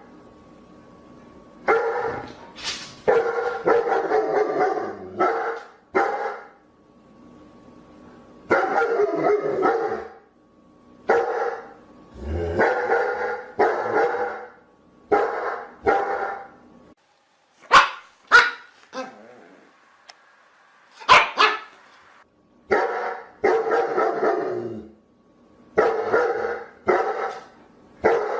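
Dogs barking in runs of several deep barks, broken by short pauses. Partway through come a few short, sharp barks spaced apart.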